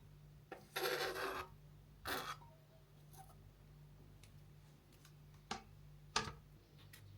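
Kitchen food-prep sounds: a rasping scrape about a second in and a shorter one near two seconds, then a few light clicks and knocks of utensils, over a faint steady hum.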